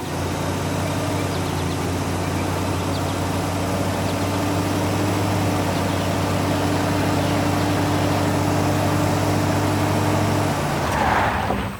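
Heavy vehicle diesel engine running steadily with a low hum, then a short rising hiss near the end before it cuts off suddenly.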